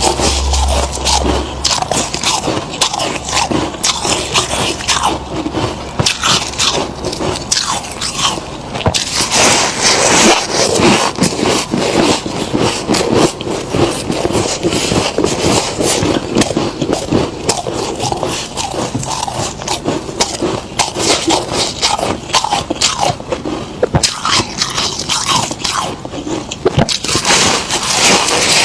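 Deep-freezer frost being scraped and crunched as it is eaten: a dense, unbroken run of crisp crackles.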